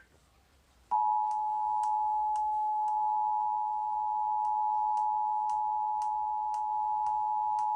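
Emergency Alert System attention signal: a steady two-tone beep near 1 kHz that starts sharply about a second in and holds evenly, the alert tone that comes before a broadcast severe thunderstorm warning. Faint regular ticks, about two a second, sit behind it.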